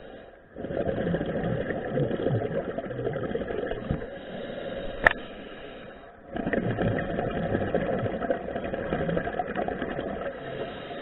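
Scuba regulator exhaling underwater: two long bursts of bubbling rattle, each about four seconds, with a quieter pause between them. A single sharp click about five seconds in.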